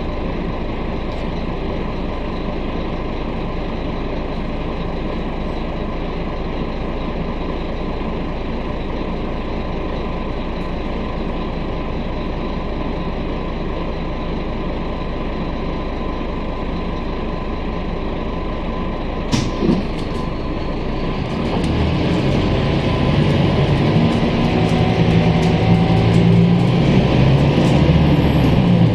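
Scania K310UB city bus heard from inside the passenger cabin, its engine idling steadily while stopped. About two-thirds of the way through there is a short sharp sound, then the engine gets louder and rises as the bus pulls away and accelerates through its automatic gearbox.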